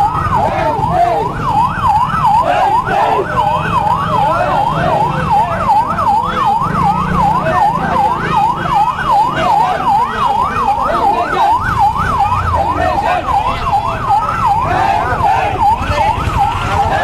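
Electronic siren in a fast yelp, its pitch sweeping up and down about three to four times a second without a break, over the noise of a crowd gathered in the street.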